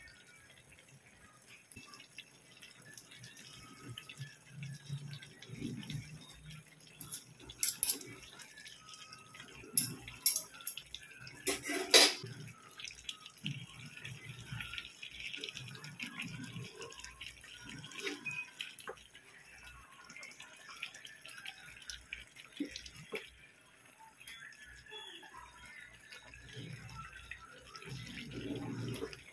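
Pork stew simmering in a metal pan, the sauce bubbling and popping in fine ticks, while a wooden spatula stirs it and knocks sharply against the pan a few times, loudest about twelve seconds in.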